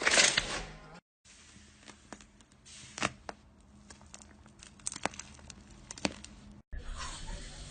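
Slime being squeezed and stretched by hand: a dense run of crackly, sticky noise at first, then a quieter clip with scattered sharp clicks and pops from air trapped in the slime.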